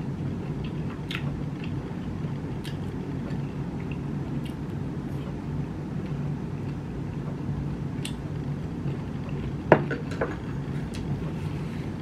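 Steady low hum with scattered light clicks of chopsticks against a ceramic rice bowl during eating. One sharper click comes near the end.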